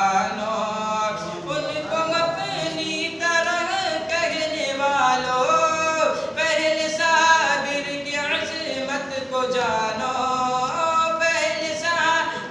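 A man's voice reciting a naat (Urdu devotional poem) unaccompanied, singing in long, wavering held notes.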